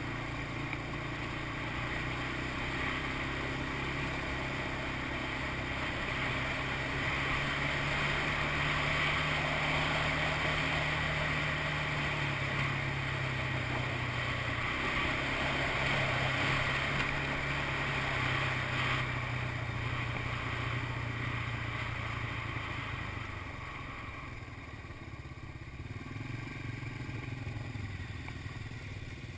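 ATV engine running steadily under way, with a strong hiss of wind and tyres over it; about three-quarters of the way through the engine eases off and drops in pitch and loudness.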